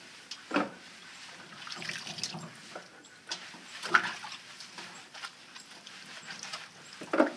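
Wet, squelching scrubbing of a lathered standard poodle's coat, as hands squeeze and rub shampoo suds through the soaked hair. Four louder squishes stand out: one near the start, one about two seconds in, one about four seconds in and one near the end.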